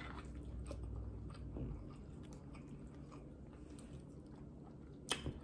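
A person chewing a mouthful of ramen noodles, with faint mouth clicks and a sharper click near the end.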